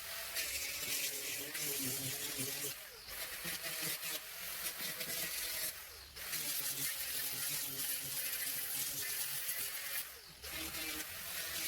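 Power sander running against the wooden weatherboards: a steady abrasive hiss over the motor's hum, with brief dips about three, six and ten seconds in.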